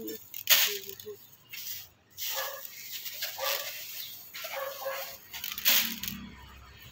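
Fertilizer granules poured by hand from a plastic bag into a plastic bucket, pattering and rattling as they land, with the bag crinkling. Short sounds come about a second apart, among them a few brief animal calls.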